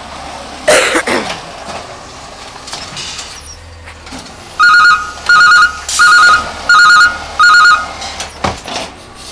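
Electronic warning alarm on a Peterbilt 320 automated side-loader garbage truck, sounding five short, loud warbling beeps in quick succession about halfway through while the lifting arm empties a cart. A brief loud hiss comes about a second in, over the truck's low idle.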